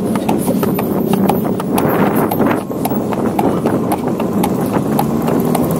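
Horse pulling a carriage along a paved street, its hooves clip-clopping steadily over the rumble of the wheels.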